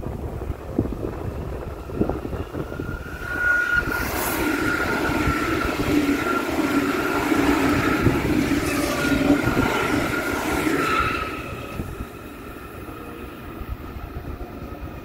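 A passenger train running past on the tracks close by, with a steady high squeal while it passes, from a few seconds in until it fades out about twelve seconds in. Wind buffets the microphone around it.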